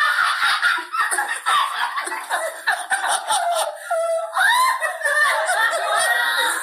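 Two women laughing hard in fits, with a high squealing laugh that rises and falls about four seconds in.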